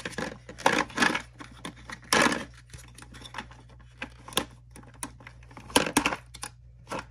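A hand rummaging inside a large plastic toy dinosaur, making irregular rustling and a few sharp plastic clicks as it feels for something stuck inside.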